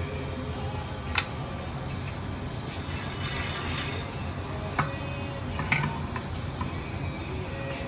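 Sharp metal clicks and clanks as a gas torch is handled and lit, with a brief hiss of gas about midway, over a steady low hum. The torch is preheating a Ford Model T engine block before its babbitt bearings are poured.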